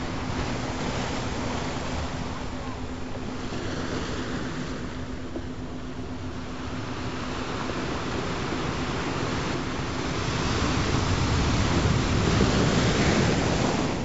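Ocean waves washing in steadily, swelling louder about ten seconds in as a bigger wave breaks, then easing near the end.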